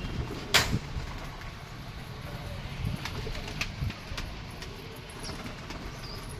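Pigeons cooing faintly over a low rumble, with one sharp click about half a second in and a few softer ticks later.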